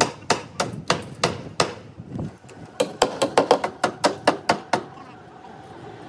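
Hand hammer blows on the staircase formwork: a run of about six evenly spaced strikes, a short pause, then a quicker run of about ten, stopping about five seconds in.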